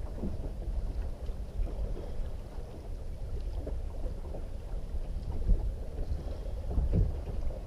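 Wind rumbling on the microphone aboard a small boat at anchor, with a few light knocks, the clearest about five and a half and seven seconds in.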